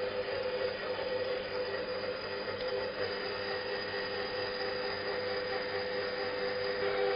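Electric stand mixer running steadily with its dough hook, turning dry stollen-dough ingredients in a steel bowl: an even motor hum with two held tones.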